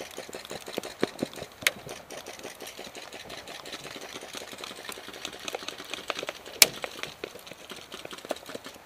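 Dense, irregular clicking and rattling with a few sharper knocks: footsteps and loose gear jostling as an airsoft player runs on pavement with a head-mounted camera.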